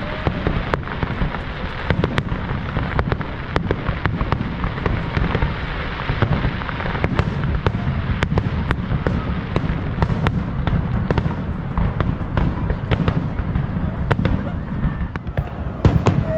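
Aerial fireworks going off in quick succession: rapid sharp bangs and crackles over a continuous low rumble of booms.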